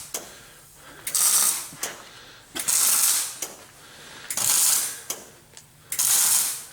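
Arc welding on thin trailer sheet metal, laid in short bursts: four crackling, sizzling bursts of about two-thirds of a second each, roughly every second and a half, with pauses between.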